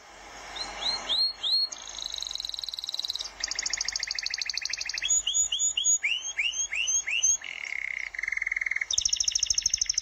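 A songbird singing a varied song: fast high trills at several pitches, each held for about a second, alternating with runs of three or four quick rising whistled notes.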